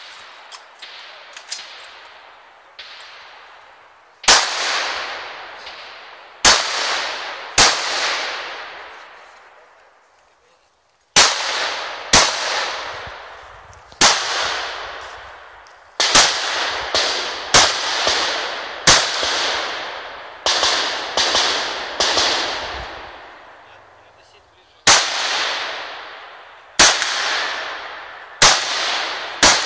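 Rifle shots fired during an IPSC course of fire, about twenty in all at an irregular pace, sometimes two close together. Each sharp crack has a long echoing tail that dies away before the next.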